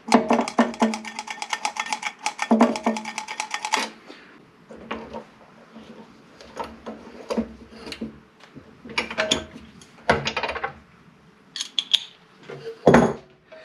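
A socket ratchet clicking and metal tools clinking at a small lawnmower engine as its spark plug is screwed back in. It opens with about four seconds of fast, dense clicking, then goes on with scattered single clicks and knocks.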